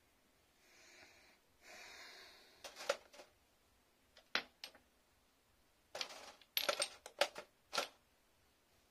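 Small glass dropper bottles and other skincare containers being handled and set down in a metal mesh drawer and acrylic organizer: two soft swishes near the start, then a series of light clinks and knocks, busiest from about six to eight seconds in.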